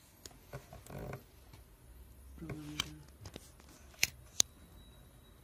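Quiet handling noises with two sharp clicks about four seconds in, and a brief murmur of a man's voice about halfway through.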